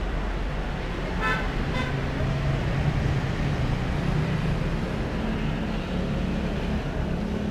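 Road traffic: a vehicle engine drone that swells in the middle, with two short horn toots about a second in.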